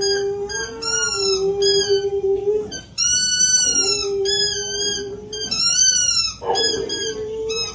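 Dog howling in a run of high, arching calls, each about a second long, with a lower steady note held under them.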